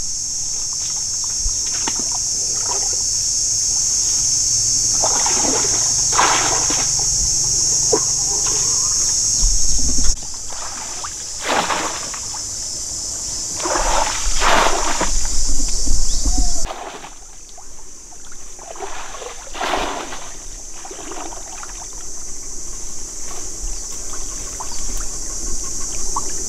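Pond water splashing and sloshing as a woven bamboo fish trap is plunged into it and a person wades through the shallows, in several separate splashes a few seconds apart. A steady high-pitched hiss runs underneath.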